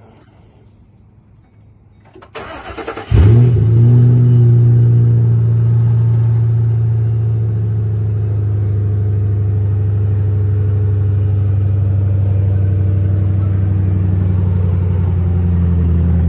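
2006 Ford Mustang's engine cranking on the starter for about a second, catching with a brief flare of revs, then settling into a steady idle.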